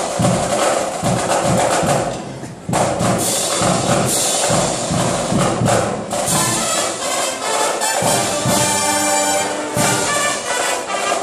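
Brass marching band playing. Drums and percussion keep a steady beat, then the horns come in with held chords through the second half.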